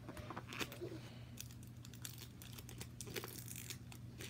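Faint crinkling and rustling of packaging with scattered small clicks, as hands pry and pull at the hard walls of a toy package to open it.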